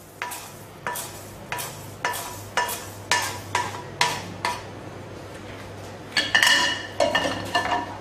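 A wooden spoon knocking and scraping toasted rice grains out of a wok into a mortar: sharp taps about twice a second for the first four seconds or so, then, after a short pause, a louder cluster of knocks with a metallic ring.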